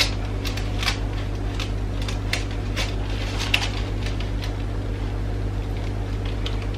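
Thick banana bread batter being scraped out of a plastic mixing bowl into a paper-lined silicone loaf tin: a string of short scrapes and taps, most of them in the first four seconds. A steady low hum runs under it.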